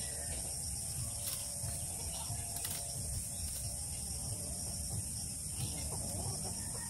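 Thin bamboo strips clicking and creaking against each other as they are bent and woven into a basket, over a steady high hiss.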